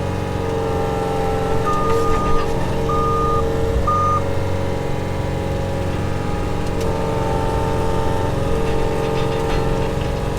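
Skid steer loader's engine running steadily as the machine drives. Its backup alarm beeps three short times, about two to four seconds in.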